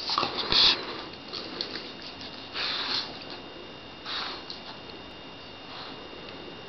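A dog sniffing and huffing in short, noisy breaths, four of them a second or two apart, the loudest near the start.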